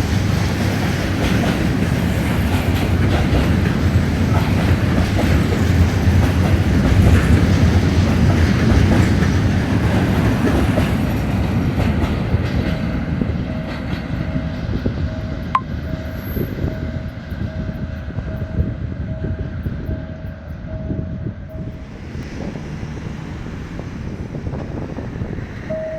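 Freight train wagons rolling past, the wheels clattering over rail joints, loudest about a third of the way in and then slowly fading as the train moves off. A faint, rapidly pulsing tone sounds for about ten seconds in the second half.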